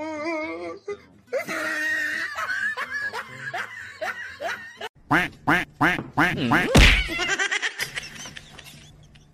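A small white duck quacking: a quick run of loud calls, about four a second, lasting about two seconds midway through. Before it, a person's voice.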